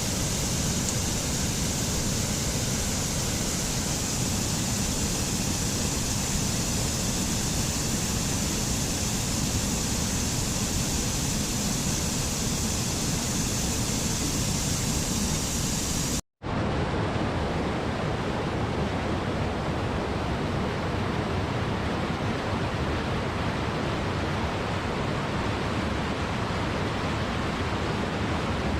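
Flowing water of a stream or creek rushing steadily. About sixteen seconds in it cuts out for an instant, and a different stretch of water follows with less high hiss.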